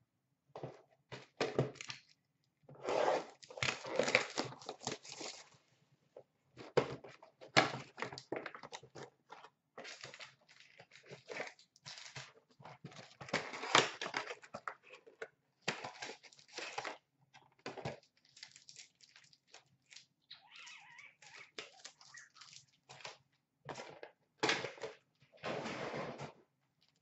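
2016-17 Upper Deck Series 1 hockey card packs being torn open, with their wrappers crinkling and cards being handled: a long string of short tearing and rustling noises broken by brief pauses.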